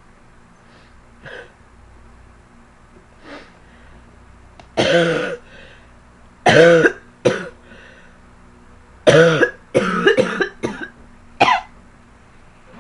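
A girl coughing hard in short, voiced bursts: one long cough about five seconds in, two more soon after, then a quick run of four around the tenth second and a last one near the end, as she tries to bring up phlegm.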